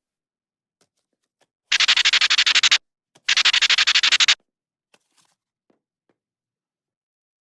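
Cartoon sound effect dubbed over a fall down the stairs: two bursts of rapid scratchy rattling, each about a second long at about a dozen strokes a second, with a short gap between them.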